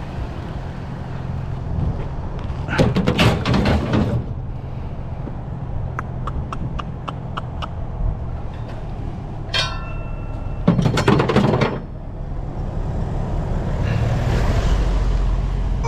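Vehicle engine idling steadily while a heavy curbside find is handled and loaded, with two bursts of clanking and rattling, a quick run of sharp ticks between them, and a brief squeak. The noise swells near the end.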